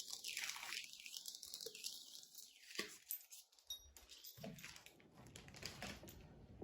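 Faint rustling and quick irregular clicks of packaging and small chair hardware being handled, with a lower rumble of handling in the second half.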